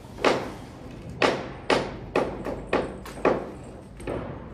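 A series of about eight sharp knocks at uneven intervals, roughly one every half second to a second, each ringing out briefly.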